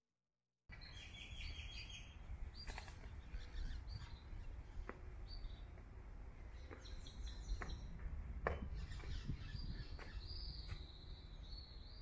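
Outdoor ambience that starts abruptly under a second in: birds chirping and calling in short repeated notes over a steady low background rumble, with a few sharp ticks.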